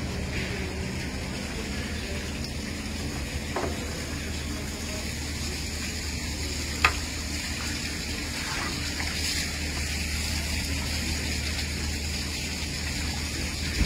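Water sloshing and fizzing in a plastic tub as a hand net scoops and lifts a live monkfish, over a steady low hum. A single sharp knock about seven seconds in.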